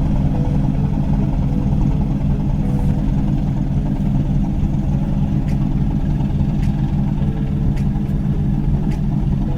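Engine of a small ferry boat running steadily at a constant speed, a low, even drone.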